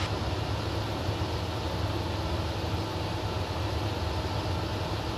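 Steady cabin drone of a Zenith CH-650 light aircraft in level cruise flight: the engine and propeller running at a constant setting, a low hum with a faint steady whine above it.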